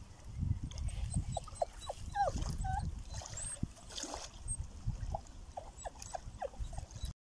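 A dog whining in short, high whimpers, in two runs: one starting about a second and a half in and another near the end. A low wind rumble on the microphone runs underneath.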